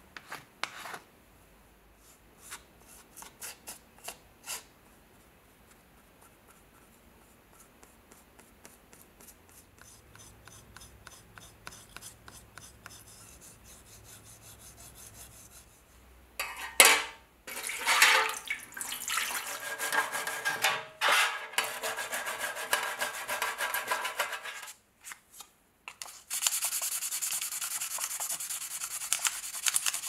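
Hands rubbing a small steel knife blade: a few light clicks in the first seconds, then loud scratchy rubbing from about halfway through. Steady rubbing of the blade under gloved fingers follows for the last few seconds.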